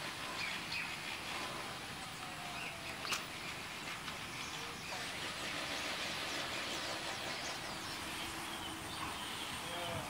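Outdoor ambience: a steady background hum with scattered short bird chirps and a single sharp click about three seconds in.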